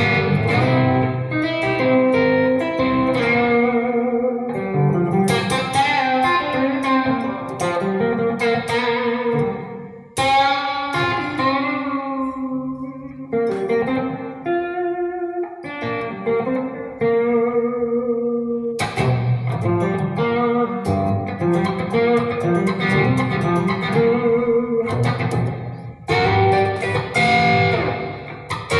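Guitar being played: a run of plucked single notes and chords, with short breaks about ten and sixteen seconds in.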